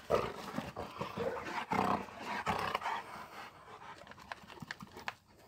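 Central Asian Shepherd dogs (alabai) growling and scuffling as they play-fight. The sounds die away after about three seconds.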